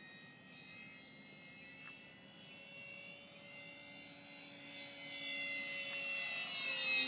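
Electric motor and propeller of a Parkzone P-47 radio-controlled model plane whining in flight. The whine grows louder over the last few seconds as the plane comes in low, and its pitch starts to fall near the end as it passes.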